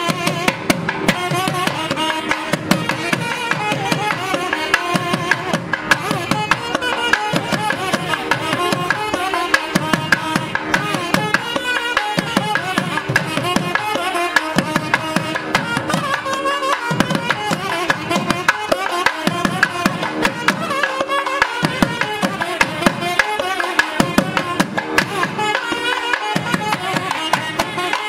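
Traditional South Indian temple music: a wavering melody over fast, steady drumming.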